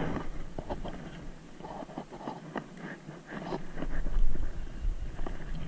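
Close handling noises of clicks, scrapes and jacket rustle as a hard-bodied lure is worked out of a bass's mouth by hand, with a louder rustle about four seconds in.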